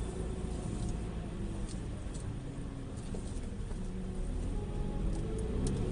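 Front-wheel-drive Mini's engine running at low revs as the car creeps over snow, heard from inside the cabin as a steady low rumble with a few faint ticks.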